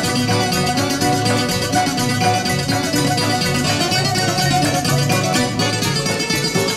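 Greek syrtaki instrumental music led by a quickly plucked bouzouki, with a steady pulsing bass line underneath.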